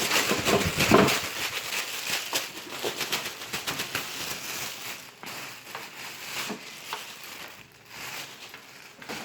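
Plastic and paper packaging crinkling and rustling as it is handled, a dense run of small crackles, busiest in the first few seconds and quieter after that.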